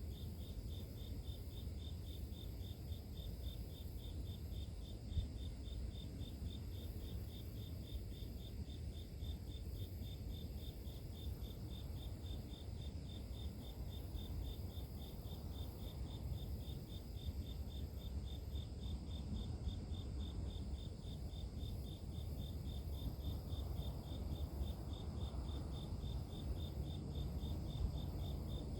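Crickets chirping in a steady, evenly repeated rhythm, with other insects trilling steadily higher up, over a low rumble.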